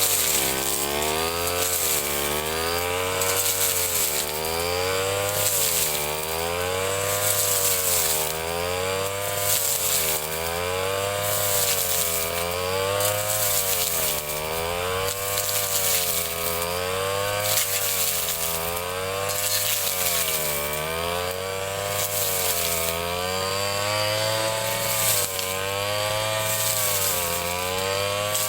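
Ryu 30.5 cc two-stroke brush cutter running at high speed while cutting grass, its engine pitch dipping under load and recovering about every two seconds.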